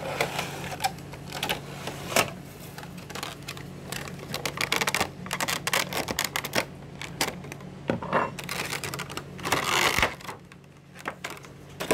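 Toy packaging and a plastic figure being handled: many quick clicks and crinkles, with a longer rustle about ten seconds in, over a low steady hum.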